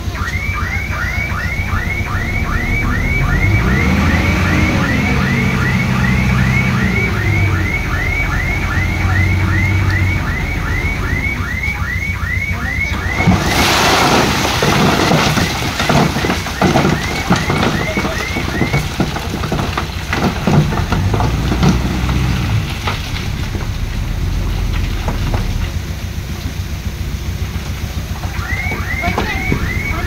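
Heavy diesel machinery running and revving, with a chirping warning alarm repeating about twice a second. About halfway through, a loud rush of clattering, tumbling stone lasts several seconds, typical of a load of stone being tipped or pushed.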